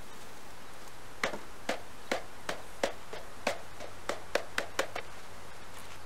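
About ten sharp wooden taps, starting about a second in, come two to three a second. They are from a wooden bee package box being knocked to shake the last bees out into the hive.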